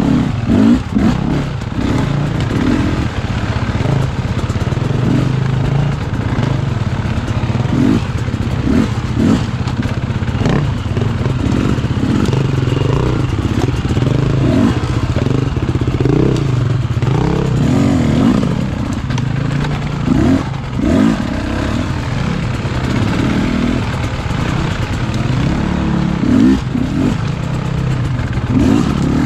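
Enduro dirt bike engine running on a trail ride, the revs rising and falling again and again as the throttle is worked, with clatter from the bike over rough ground.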